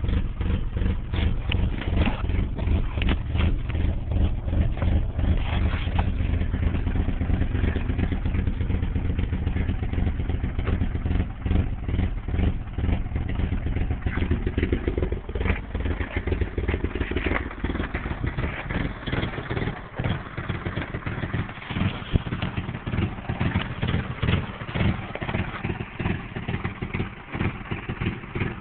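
1989 Nissan 240SX's 2.4-litre four-cylinder engine idling roughly, a steady but uneven run of exhaust pulses. The low end drops back and the pulsing grows more ragged about halfway through.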